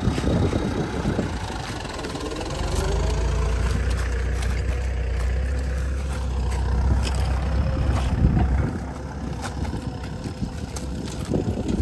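Farm tractor engine rising in pitch as it picks up, then running steadily for several seconds before the low rumble drops away near the end. Scattered sharp knocks over it.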